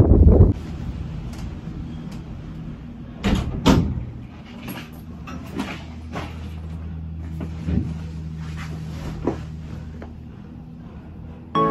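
Gondola cable car cabin moving out of the station: a steady low hum with the cabin clunking and knocking, two louder knocks a little over three seconds in and lighter ones spaced through the rest. Wind noise on the microphone for the first half second.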